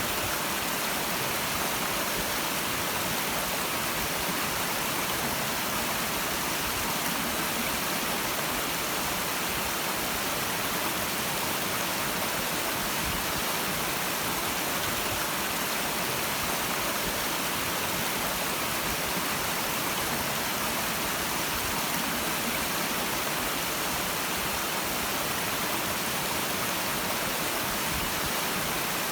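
A clear stream flowing: a steady, hissy rush of running water with no breaks or single splashes standing out.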